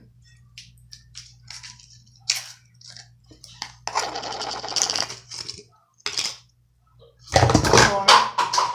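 Slime being squeezed and played with in the hands: a run of small clicks and pops, a longer squishing stretch about four seconds in, and the loudest, densest squishing near the end.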